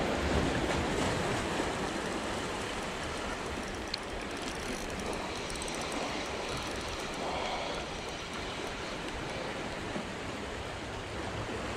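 Sea water washing against shoreline rocks, a steady rush of surf, with one small click about four seconds in.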